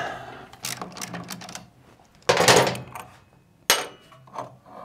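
Hand tools and metal moped parts clicking and knocking during the strip-down of a Piaggio Ciao, with a longer, louder clatter about two and a half seconds in and a sharp click a second later.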